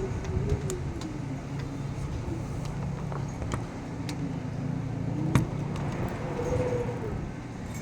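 A motor vehicle engine running, its pitch slowly dropping and then rising again over a steady low hum. A few sharp clicks are heard, the loudest about five seconds in.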